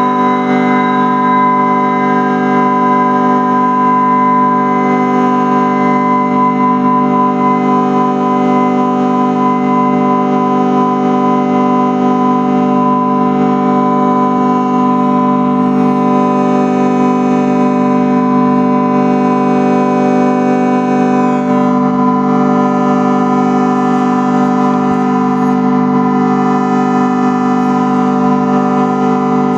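A steady, unbroken instrumental drone held at one low pitch, its overtones slowly shifting, with a change in tone colour about 21 seconds in.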